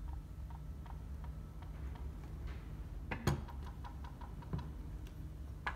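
Loose seed plate tapping against a John Deere vacuum seed meter as the meter is rocked: light irregular clicks, with a louder knock about three seconds in, over a low steady hum. The tapping is the sign that the plate moves freely and the center hub needs tightening.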